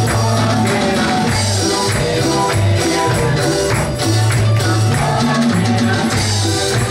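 Live church band playing an upbeat Pentecostal coro: drums and a jingling tambourine over a walking bass line, with voices singing.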